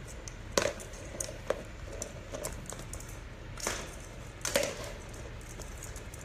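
Old English sheepdog puppy pawing and chasing a battery-powered rolling ball toy over a rug and hardwood floor: scattered taps and clicks with a few louder knocks as the ball and paws bump.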